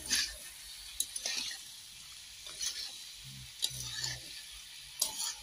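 Flat spatula scraping and stirring potato, cauliflower and tomato pieces around a kadhai, over a steady sizzle of the vegetables frying in oil. The scrapes come irregularly, roughly one a second.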